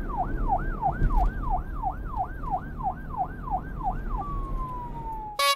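Emergency vehicle siren on a fast yelp, rising and falling about three times a second over a low rumble. A little after four seconds in it slides into one slow falling tone, then cuts off.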